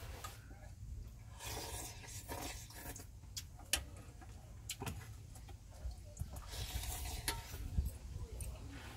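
Scattered light clicks and knocks of small objects being handled, with short rustles, over a low steady rumble.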